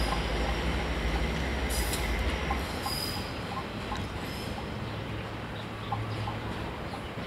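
TRA DR2700 stainless-steel diesel railcar running away along the track, its engine drone and wheel rumble fading as it recedes. The low engine note drops away about two and a half seconds in.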